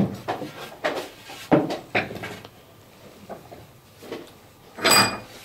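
A hand plane set down with a sharp knock on a wooden workbench, then a few knocks and scrapes as a long wooden slat is picked up and handled on the bench. The loudest is a clattering knock with a brief ring near the end.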